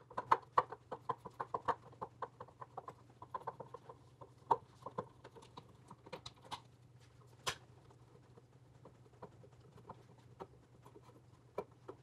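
Phillips screwdriver backing out the metal mounting screws of an electrical outlet: a run of small, quick metal clicks and scrapes, dense at first, then sparser with a few sharper ticks.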